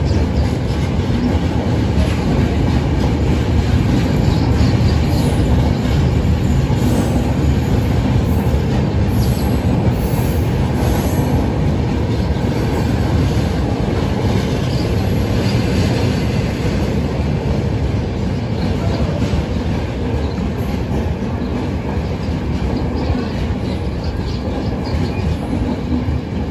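Sealdah–Bikaner Duronto Express passenger coaches running through the station without stopping: a loud, steady rumble of wheels on the rails, easing slightly in the second half.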